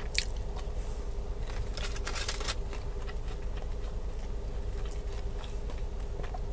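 A person chewing a bite of chicken nugget topped with caviar: quiet, scattered crunching and mouth sounds, strongest around two seconds in, over a steady low electrical hum.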